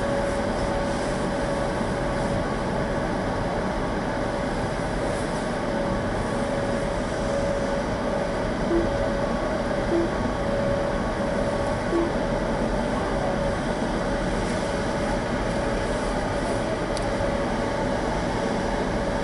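Steady machine drone with a constant hum, heard from inside a car's cabin. Three short beeps about a second or two apart come around the middle.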